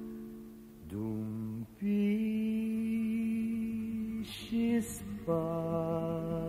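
Music: a slow song with a voice holding long sung notes.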